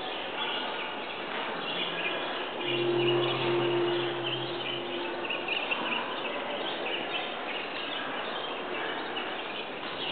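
Dense, steady bird-like chirping and twittering. A low steady hum comes in about three seconds in and fades out a few seconds later.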